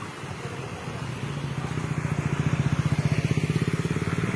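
A vehicle engine running close by, with a rapid even pulse, growing louder to a peak past the middle and easing near the end.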